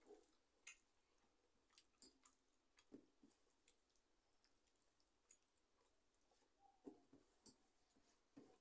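Very faint sounds of eating by hand: fingers working food around a steel plate and soft chewing, heard as scattered light clicks and a few soft thuds, with several more near the end.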